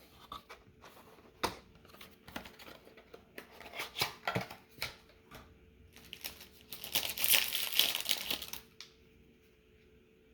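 Packaging crinkling and tearing as a sealed trading-card box is opened by hand. There are scattered crackles at first, then a dense burst of crinkling about seven to nine seconds in, and after that it goes quiet.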